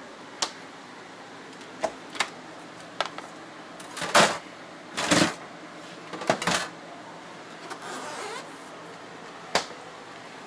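Doors and latches being opened and shut inside a motorhome. There are scattered sharp clicks, and in the middle a few louder, brief rustling knocks.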